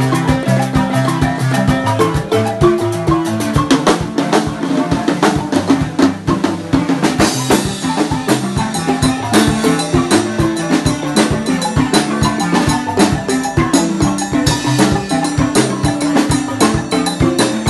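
Live marimba band music: several wooden marimbas play a repeating pattern of low and middle notes while a drum kit keeps a steady beat. The cymbals get busier about seven seconds in.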